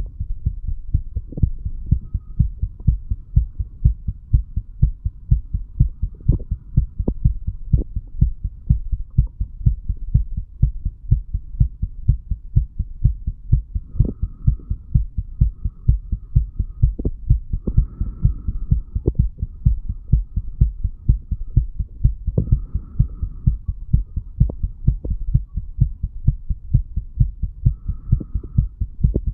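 A man's heart beating, recorded at the chest: a steady, even run of low lub-dub thumps, taken a couple of hours after heavy drinking while he lay in bed.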